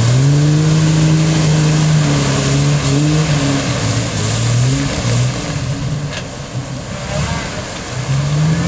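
Jeep engine revving up and down repeatedly as its tyres spin in deep mud, losing traction despite its gears and lockers. The revs ease off for a couple of seconds past the middle and climb again near the end.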